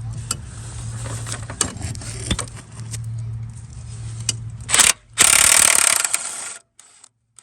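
Ratchet wrench with a socket on a swivel and extension clicking in irregular strokes as a brake-booster bolt is worked loose, over a steady low hum. Near the end a loud harsh noise lasts about two seconds, then the sound cuts off abruptly.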